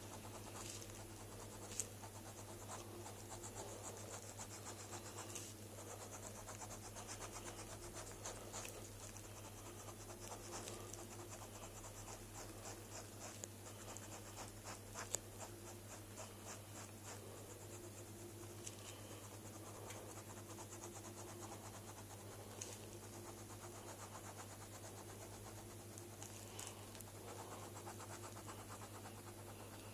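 Ballpoint pen scratching on sketchbook paper in many short, quick hatching strokes, faint, over a steady low hum.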